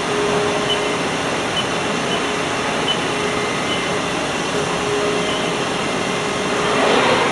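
Haas ST-30SSY CNC lathe running, a steady mechanical hum with a faint whine that comes and goes, light ticks about once a second, and a swell of noise near the end.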